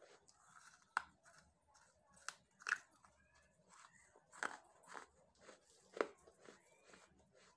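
Close-miked crunching and chewing: a person biting into hard, crumbly brick-red chunks that look like baked clay. A handful of sharp crunches, the loudest about one, three and six seconds in, stand out between softer chewing.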